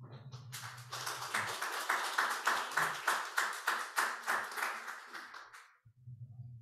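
An audience clapping. The applause starts about half a second in and fades out near the end.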